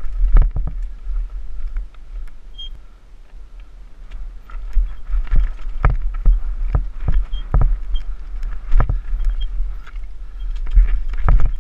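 Mountain bike descending a rough trail, recorded on a camera riding with it. Heavy wind rumble on the microphone is broken by frequent irregular knocks and rattles from the bike jolting over the ground.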